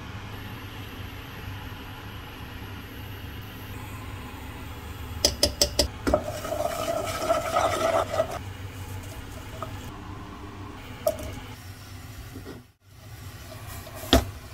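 A spoon clicks several times against a frying pan, then scrapes and stirs a spice paste in oil for about two seconds, over a steady low hum.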